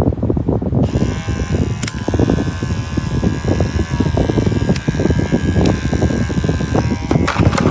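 Cordless electric dog clippers running with a steady buzz, over a loud, uneven low rumble.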